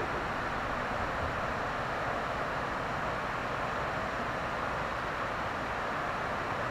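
Steady, even outdoor rushing noise with no distinct events in it.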